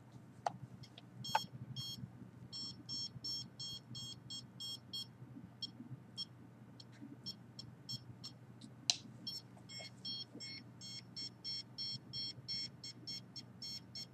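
Handheld signal meter beeping out its readings: short high beeps in quick, irregular runs that grow denser in the second half, with a few sharp clicks, over a steady low hum.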